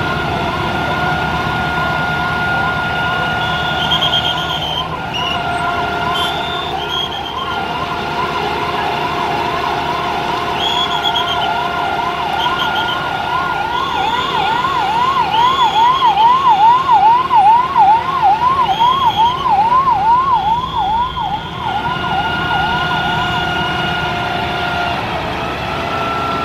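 Fire engine siren wailing in a fast up-and-down sweep, about two cycles a second, over a steady held tone. It is loudest in the middle.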